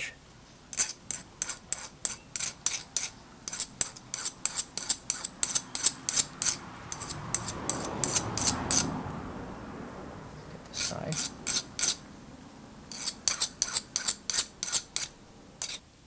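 A hand file rasping across the cut end of a small copper-tube battery cable lug in short quick strokes, about three a second, in several runs with brief pauses: the sharp edge is being rounded off. A soft rushing sound swells and fades around the middle.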